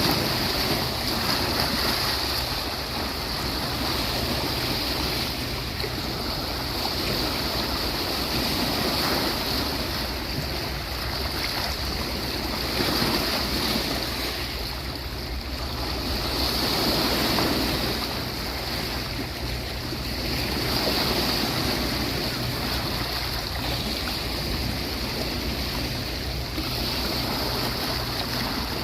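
Sea waves breaking and washing onto a beach, the surf swelling and easing every few seconds.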